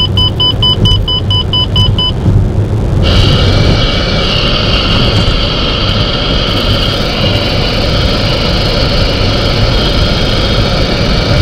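Car driving, with steady engine and road rumble from inside the cabin. For the first two seconds a rapid electronic beeping, about five beeps a second, sounds over it. About three seconds in, the noise shifts to a steadier, brighter road and tyre hiss.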